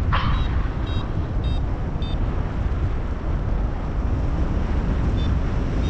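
Strong wind buffeting the camera microphone, a dense low rumble. Short high electronic beeps from a paragliding variometer come a few times in the first two seconds and once more near the end.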